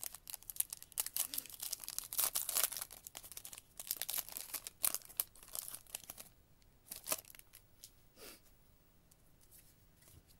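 A foil wrapper of a 2023 Prizm Football card pack being torn open and crinkled by hand: dense crackling for about six seconds, then a few separate rustles, then it goes quiet near the end.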